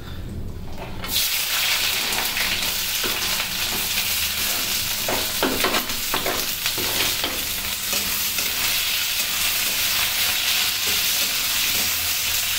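Sliced onions dropped into hot oil in an aluminium kadhai, starting a loud sizzle suddenly about a second in that runs on steadily as they fry. A metal spatula stirs and scrapes the onions around the pan.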